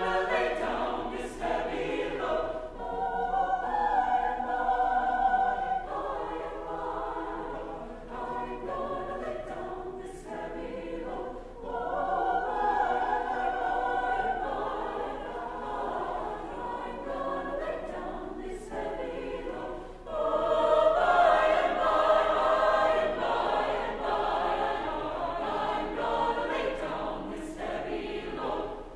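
A mixed chamber choir singing in parts, swelling louder after a brief dip about twenty seconds in.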